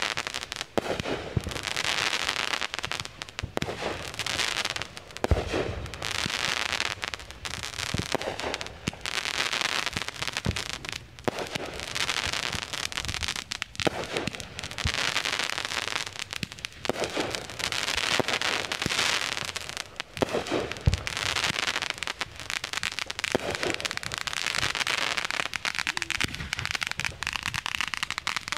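Aerial fireworks bursting one after another: a dull boom every two to four seconds, with dense crackling and hissing between the booms.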